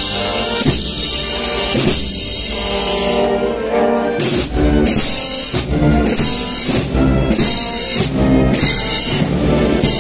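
Live procession band playing a slow processional march: sustained brass chords over regular drum beats.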